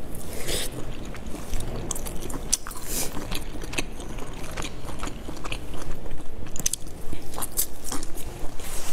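A person biting and chewing soft dumplings close to the microphone, with irregular wet mouth clicks and smacks that grow busier near the end.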